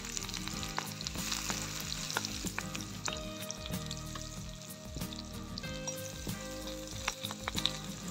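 Onion and egg frying in oil in a small pan over a wood fire, sizzling steadily while a metal spoon stirs through them, with scattered light clicks.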